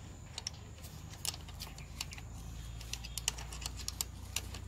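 Handlebar clamp of a vibration-reduction rod being fitted by hand onto a motorcycle handlebar: a run of small, irregular clicks and taps as the clamp is worked into place and locked shut.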